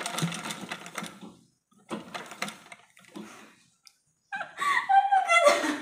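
Zenith treadle sewing machine stitching in three short stop-start bursts of rapid clatter, each lasting under a second or so. Near the end, a woman laughs loudly.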